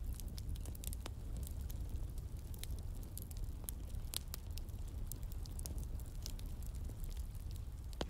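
Crackling fire: irregular sharp pops and snaps over a low, steady rumble.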